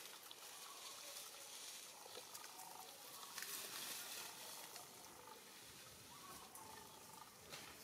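Faint outdoor ambience: a quiet hiss with a few soft rustles and scattered short faint chirps.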